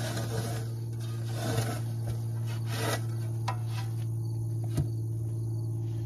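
A shovel scraping and lightly knocking as spilled corn silage is scooped off packed dirt and dumped into a plastic tub, a few faint scrapes and clicks over a steady low hum.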